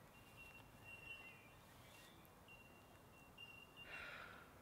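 Near silence: faint outdoor ambience with a thin, high, steady tone that breaks off and resumes several times, and a brief soft noise near the end.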